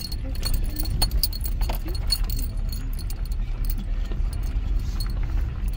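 Steady low rumble of a car driving slowly, heard inside the cabin, with frequent small metallic clicks and rattles.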